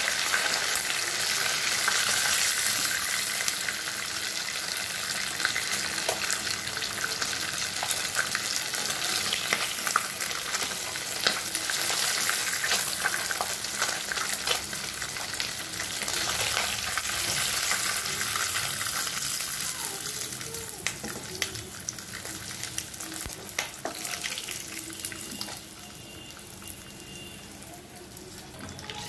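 Katla fish heads sizzling steadily in hot mustard oil in a kadai, with scattered clicks and scrapes of a spatula as the heads are broken up in the pan. The sizzle drops off in the last few seconds.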